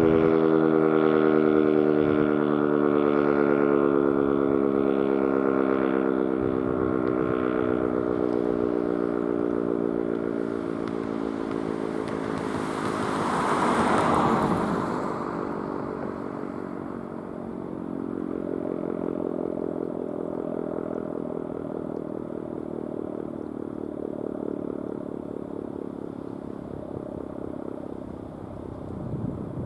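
ACA Banshee 115 electromechanical warning siren winding down, its tone sliding slowly lower and fading as the rotor coasts down at the end of a test. About halfway through, a rushing noise swells and fades over it.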